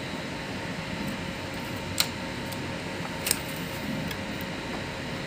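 Two sharp clicks of plastic parts inside an Epson L130 inkjet printer as a loose pulley is worked back into place, about two seconds and three seconds in, over a steady fan-like room hum.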